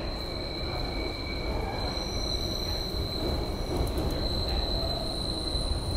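SEPTA Broad Street Line subway car running, heard from inside the car: a steady low rumble under a constant high-pitched squeal, with fainter higher tones coming and going.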